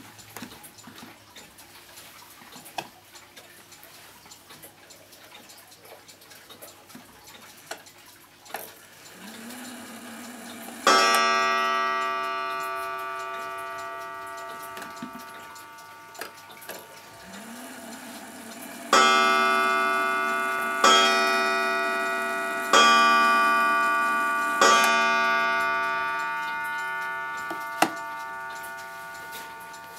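Smiths Enfield 8-day mantel clock ticking, with clicks as its hands are turned forward by hand. It strikes once on its coiled gong for the half hour, then four ringing strikes about two seconds apart for four o'clock, each slowly dying away.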